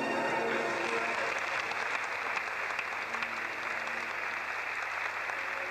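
Music with bell-like tones stops about half a second in, and an audience applauds.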